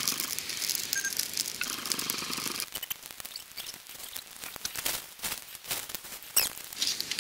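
A small kindling fire of resinous fatwood and dry bark just catching: hissing and crackling, with many small sharp snaps. The hiss is louder in the first few seconds.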